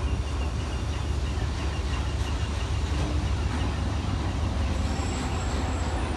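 Freight train of enclosed autorack cars rolling past, a steady low rumble of steel wheels on rail.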